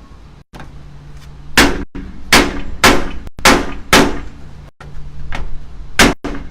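Hammer blows driving a tight-fitting replacement window into its frame opening: about seven sharp knocks with a short ring after each, five in quick succession, then a brief pause and more near the end.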